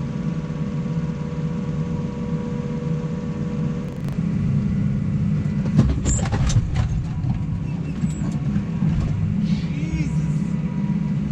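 New Holland T7 tractor running steadily while pulling a Lely round baler through straw. About four seconds in, a thin steady whine drops out and the sound grows louder, with a few knocks a second or two later.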